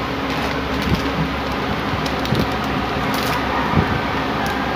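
Steady noise of an electric fan running, with a plastic snack wrapper crinkling in the hand a few times, most clearly about three seconds in.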